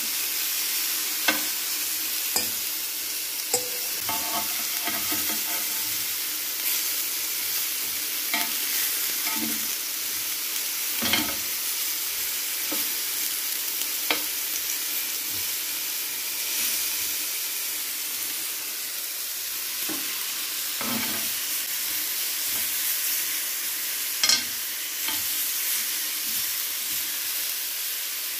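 Marinated chicken skewers with green pepper and onion sizzling in a ridged grill pan: a steady frying hiss. A few sharp knocks are scattered through it, the loudest one near the end.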